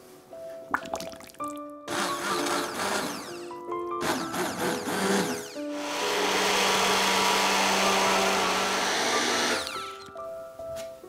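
Immersion blender puréeing a pot of chunky roasted vegetable soup: two short bursts a couple of seconds in, then a steady run of about four seconds, the loudest part, that winds down shortly before the end as the soup turns smooth. Soft background music with held notes plays throughout.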